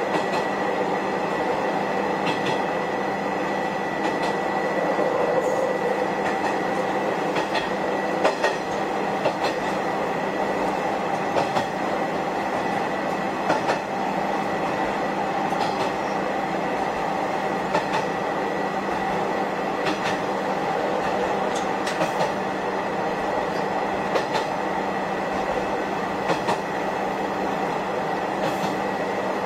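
Shigaraki Kohgen Railway SKR500 diesel railcar running along the line, heard from inside the car: a steady drone of the engine and running gear with a constant tone over it, and clicks every second or two, some in quick pairs, as the wheels cross rail joints.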